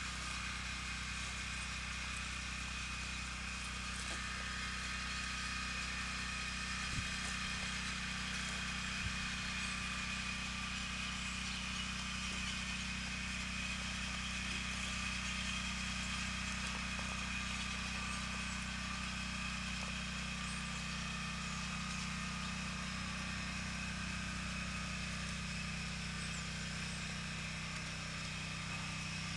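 A steady mechanical hum with a fainter high whine above it, unchanging throughout. Two brief clicks come about seven and nine seconds in.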